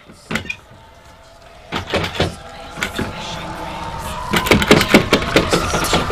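A lever door handle being worked and a door moving: separate clicks and knocks. From about four seconds in, a quick run of sharper knocks comes in over a steady tone that grows louder.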